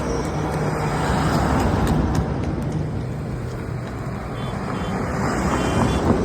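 Road traffic noise: a steady rush of passing vehicles.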